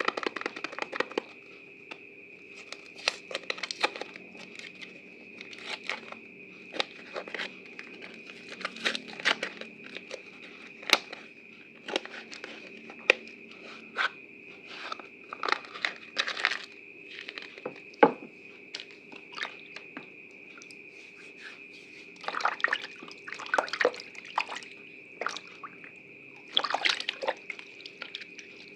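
Wet, soaked bar soap being squeezed and worked by hand, giving irregular short squelches and crackles, over a faint steady high hum.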